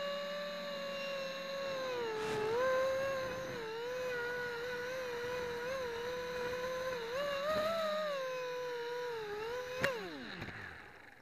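HobbyKing FPV250 quadcopter's electric motors and propellers whining close to the onboard camera's microphone, the pitch rising and dipping with throttle. About ten seconds in there is a sharp impact as the quad hits the grass, and the motors wind down in a quickly falling whine and stop.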